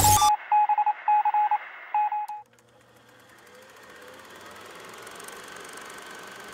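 Electronic beeps on one pitch, in short uneven groups like Morse code, right after a burst of loud static cuts off. The beeps stop about two and a half seconds in, leaving a faint hiss and hum like a dead TV channel.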